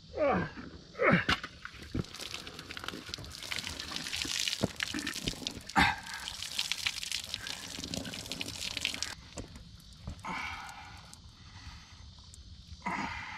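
Water dripping and spattering off a large blue catfish as it is hoisted and held up by hand, with a dense wet crackle of handling. A few short falling sounds come near the start as it is lifted, and there is a sharp snap about six seconds in.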